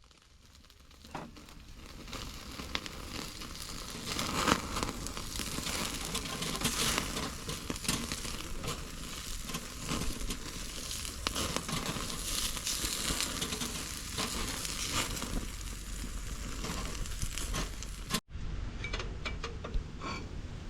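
Steady crackling, sizzling noise dense with small clicks. It cuts off abruptly near the end, then a similar crackle starts again.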